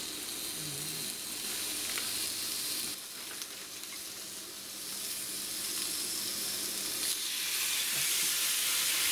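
Thick slices of braised pork sizzling in a grill pan over an open wood-stove fire, with a few small pops. The sizzle grows louder over the last couple of seconds.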